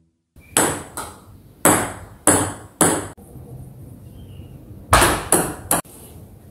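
Table tennis ball clicking off the paddle and the table: five sharp clicks spread over the first three seconds, then a quick run of four about five seconds in.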